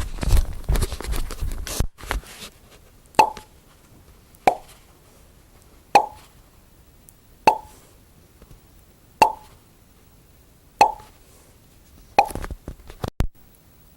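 A noisy, clattering sound for about the first two seconds, then a series of single hollow plops, each with a short ringing pitch, about one every second and a half. A short burst of quick clicks comes near the end.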